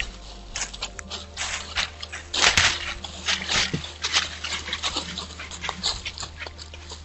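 A white-tailed deer buck walking through dry fallen leaves, the leaves crunching and rustling irregularly under its hooves, with a louder burst of crunching about two and a half seconds in.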